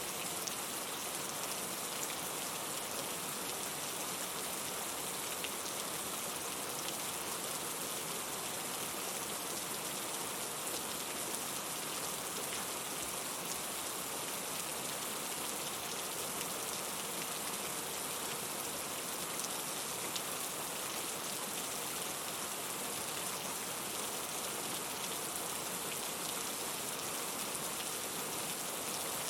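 Steady rain falling, an even hiss with fine scattered drop patters.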